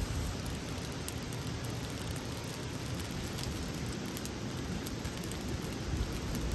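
Steady rushing hiss of water, with faint scattered crackles from a small twig-and-birch-bark campfire just catching.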